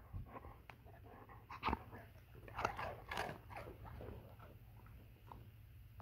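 Dog crunching and chewing a treat: a faint run of short, irregular crunches, thickest in the first half, which die away after about four seconds.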